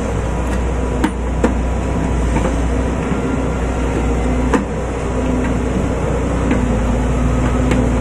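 Steady low engine drone of road-construction machinery, with a few sharp clicks from the new microwave magnetron and its wiring being handled.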